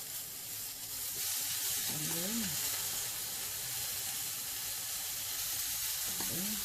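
Raw shrimp and pork belly sizzling in a little oil in a hot nonstick pan, the sizzle growing louder about a second in.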